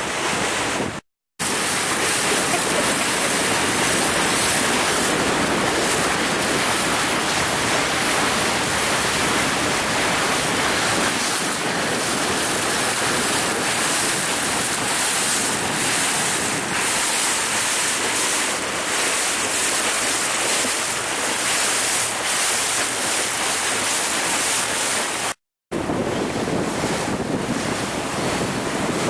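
Wind buffeting the camera microphone and water rushing past a moving boat's hull, a steady noisy rush. It cuts to silence briefly twice, about a second in and near the end.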